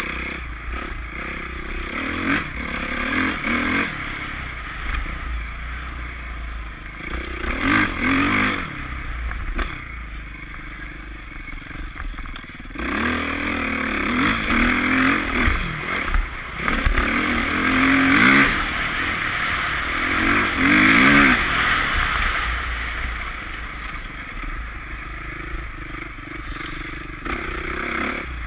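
Dirt bike engine revving up and dropping back again and again as the bike is ridden along a snowy track. The loudest rev-ups come about eight, eighteen and twenty-one seconds in.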